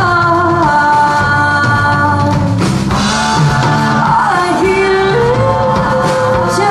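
Live rock band playing: drum kit, bass, electric and acoustic guitars, with a melody line gliding up and down in pitch above them.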